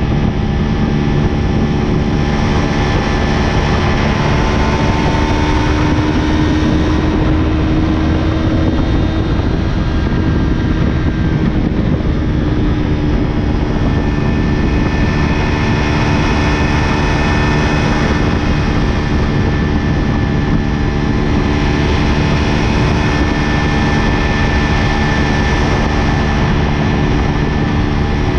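Yamaha YZF-R3's parallel-twin engine, with a LeoVince LV10 exhaust, running steadily at high rpm at about 85 to 97 mph, its pitch drifting slightly as speed changes. Heavy wind rush on the bike-mounted microphone runs underneath.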